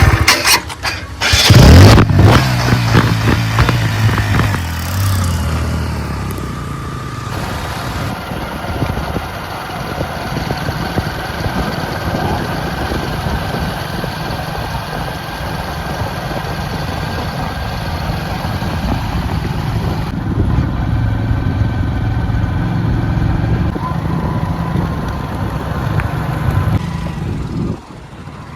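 Heavy diesel engine running steadily under load, with loud bursts of noise in the first two seconds.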